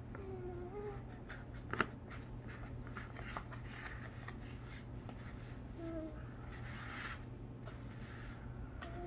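Kinetic sand and a small plastic sand mold being handled: soft scraping and crumbling of sand with small plastic clicks, one sharper click about two seconds in. Two short hummed voice sounds, near the start and about six seconds in.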